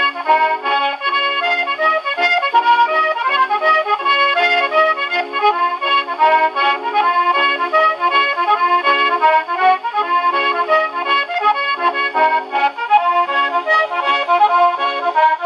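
Scottish melodeon (diatonic button accordion) with piano accompaniment playing a quick, steady strathspey, from a 78 rpm shellac record on an HMV 102 wind-up gramophone. The sound is thin, with almost no deep bass.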